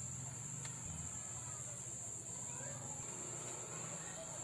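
Crickets chirping as a steady high drone over a low hum, with one faint click about two-thirds of a second in.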